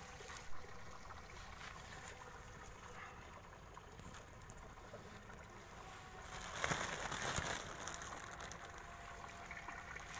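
A clear plastic bag of water with freshly trapped small fish being handled: water sloshing and plastic rustling, with one louder stretch of about a second past the middle.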